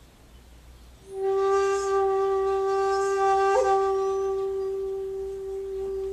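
Shakuhachi, the Japanese end-blown bamboo flute, playing one long held note that comes in about a second in. The note is breathy at its start and has a brief flick in pitch midway.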